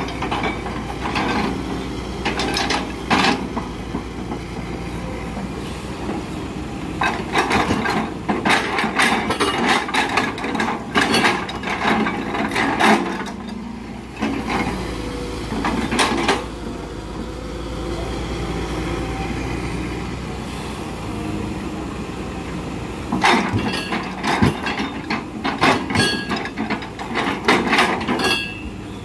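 Hydraulic excavator's diesel engine running steadily while its log grapple handles rubberwood logs. Clusters of sharp knocks and clatter from the logs come about a quarter of the way in through the middle, and again near the end.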